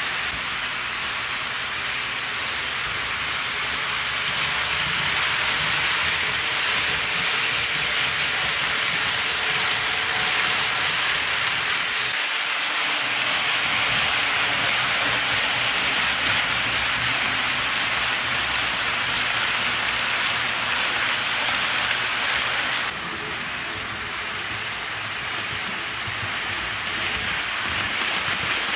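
HO scale model trains rolling along the track: a steady, even rattling hiss of small metal wheels on rail, with a faint low motor hum beneath it.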